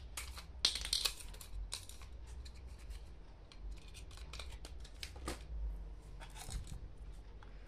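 Scattered small clicks and scrapes as a panel component is pushed and worked against a hole cut in the enclosure box, a hole a little too small for it.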